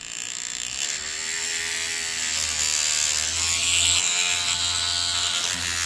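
Green Stuff World Hobby Paint Shaker, a handheld cordless paint mixer, switched on: its small electric motor comes up to speed over about the first second, then runs steadily, vibrating a dropper bottle of paint held in its holder.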